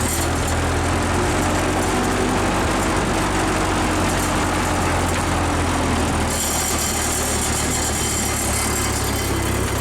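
1947 Ford 2N tractor's four-cylinder flathead engine running steadily as the tractor drives along.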